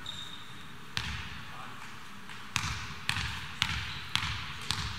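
Basketball being dribbled on a court: one bounce about a second in, then a steady run of bounces about twice a second.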